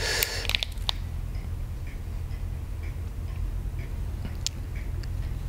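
A brief rustle and a few sharp clicks in the first second, then faint, regular ticking about twice a second over a low steady hum.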